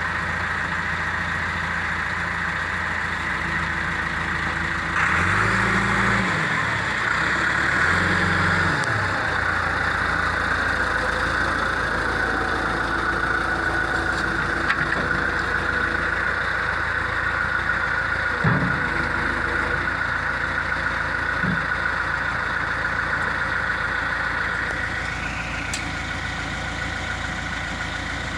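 2003 John Deere 410G backhoe's diesel engine running steadily. About five seconds in the engine note rises and falls twice, then settles back to a steady idle.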